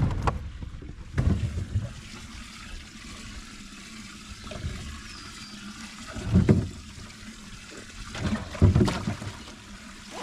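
Water trickling and splashing in a boat's live well, with a few louder splashes or knocks scattered through.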